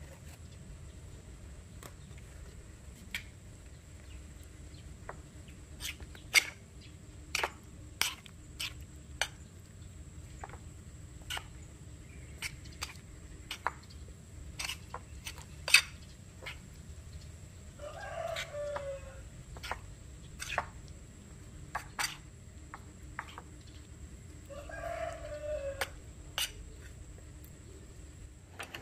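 A metal spoon clinks and scrapes against a ceramic plate while tossing raw chicken pieces in flour, giving sharp clicks at irregular intervals. A rooster crows twice in the background, once past the middle and again later, each call about a second long and falling at the end.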